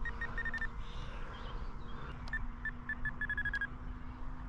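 Radio transmitter trim beeps: short electronic beeps of one pitch, a few near the start and then a quick run of about eight around the middle, as the trim is stepped during the trim-out flight. Under them runs a steady faint hum with low rumble.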